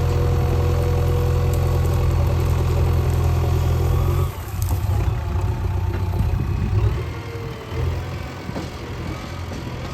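JCB 3DX backhoe loader's diesel engine running, a loud steady low drone that drops off sharply about four seconds in, then runs quieter and less evenly.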